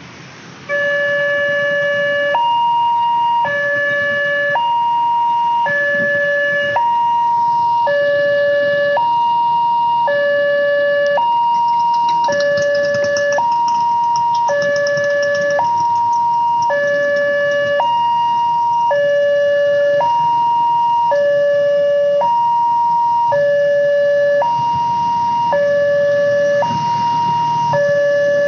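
Railway level-crossing warning siren switching on about a second in and sounding a loud two-tone hi-lo wail, alternating between a lower and a higher tone about once a second.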